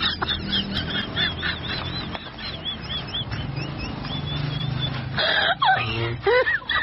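Birds calling: a quick run of short, high calls, about three a second, then louder, lower calls that fall in pitch from about five seconds in.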